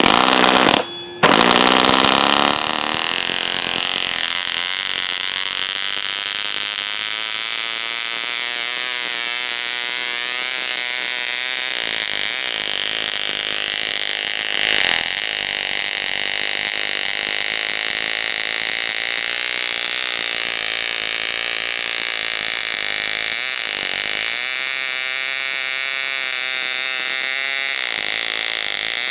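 A 1973 Fox 29 two-stroke model glow engine, with no muffler fitted, is spun by an electric starter and catches within about a second. It then runs steadily with a 9x6 propeller at roughly 6,000 to 8,000 rpm.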